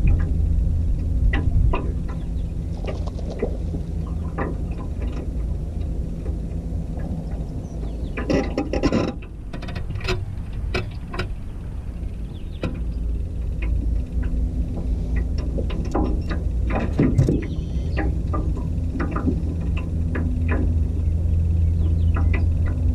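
Wind rumbling on the microphone over a steady low hum, with scattered clicks and rattles from a fishing rod and reel being cast and cranked. A denser run of clatter comes about eight seconds in.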